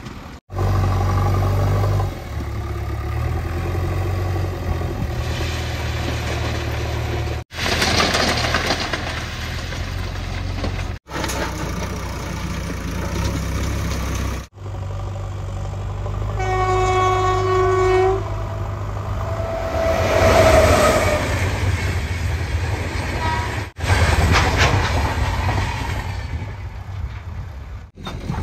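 Diesel engines of a JCB 3DX backhoe loader and a rail-wheeled truck running steadily, cut off abruptly several times. About halfway through, a horn sounds once for about a second and a half.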